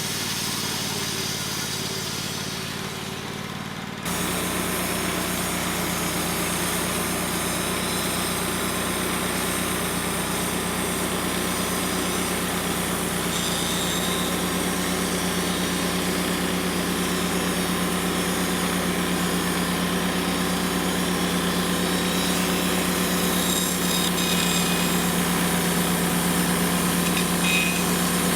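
Wood-Mizer LT35 portable band sawmill's engine running steadily. The sound changes abruptly about four seconds in, then holds a steady, even engine note.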